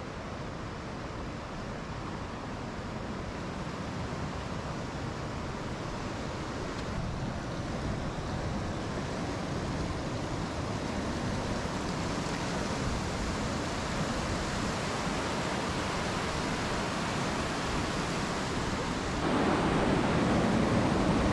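A fast mountain river, the Tirthan, rushing over rocks in a steady roar of water that grows gradually louder, with a step up near the end.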